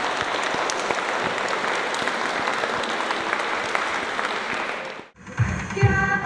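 Audience applauding steadily, breaking off abruptly about five seconds in; music starts right after.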